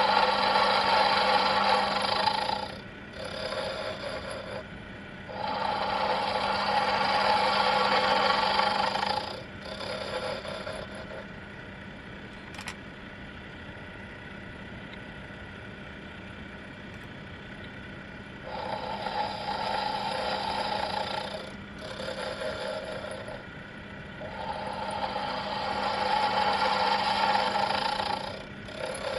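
Proxxon PD 250/E mini lathe running with a steady motor hum, with several spells of louder, rougher noise a few seconds long as the cutting tool is fed into the stainless steel bolt; the cutting noise drops away for several seconds midway, leaving only the motor.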